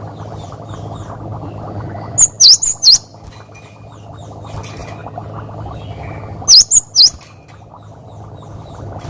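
Cinereous tit (gelatik batu) singing two loud phrases of about four quick, sharp, high 'wucit' notes, each dipping and rising in pitch. The phrases are about four seconds apart, over a steady low hum and hiss.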